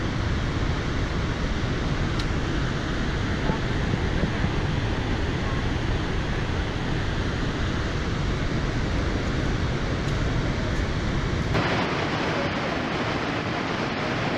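Horseshoe Falls at Niagara, a steady dense rush of falling water with deep rumble. About three-quarters of the way through it changes abruptly to a thinner, hissier rush with less rumble.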